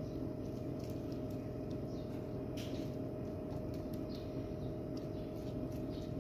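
Steady low background hum with a faint steady tone in it, and faint irregular ticks over the top.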